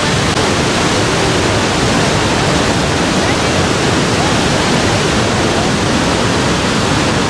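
Steady, loud rush of Niagara Falls' falling water, an even wall of noise with no breaks.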